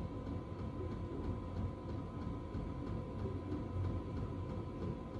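Steady low machine hum with a thin, steady whine above it and faint ticking at an even pace.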